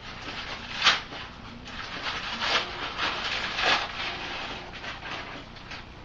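A spatula scraping and rustling in irregular strokes as it spreads icing over the side of a cake, the clearest strokes about a second in and twice more in the middle.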